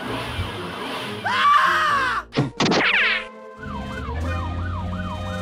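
Police siren in a quick up-and-down wail, a few sweeps a second, broken about a second in by a loud burst of gliding, sweeping sound effects, then resuming near the end. Light background music runs underneath.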